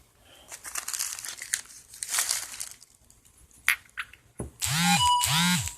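Packaging being handled: crinkling and rustling of plastic wrap, then a few sharp clicks. Near the end come two identical short pitched sounds, each rising then falling in pitch, louder than the rustling.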